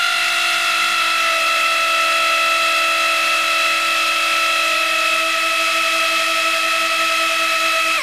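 Hover:bit hovercraft's small electric motor spinning its propeller at throttle under radio remote control: a steady high whine that sags slightly in pitch.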